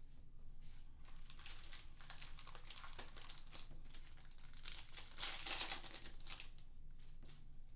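Panini Mosaic basketball card packs being torn open, their wrappers crinkling and tearing in irregular bursts, loudest about five seconds in.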